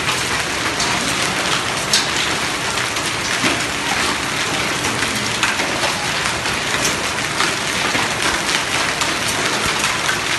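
Heavy rain mixed with hail falling on paved ground: a dense, steady hiss with many sharp ticks of hailstones striking.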